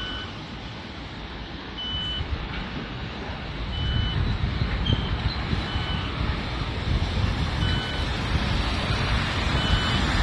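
Pedestrian crossing signal giving a short high beep about every two seconds, over the hiss of traffic on a wet road. Vehicle tyre and engine noise grows louder about four seconds in as cars and a van drive through.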